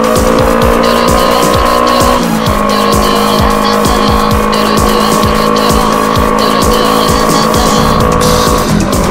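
Background music with a steady drum beat under sustained chords, which change about two seconds in and again near the end.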